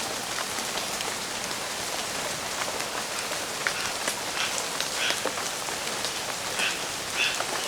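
Rain falling steadily, an even hiss with scattered small drop ticks. A few short high chirps sound over it in the second half.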